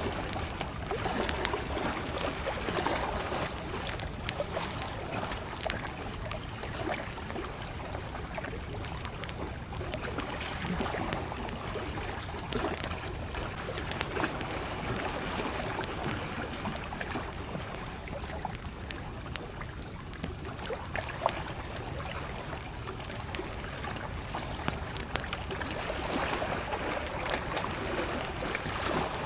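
Wood campfire crackling with frequent small sharp pops, over gentle lake waves lapping at the shore. One pop about two-thirds of the way through is louder than the rest.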